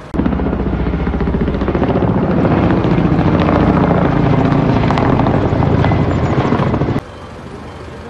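Firefighting helicopter flying overhead, its rotor beating rapidly and steadily. The sound starts abruptly and cuts off suddenly about seven seconds in.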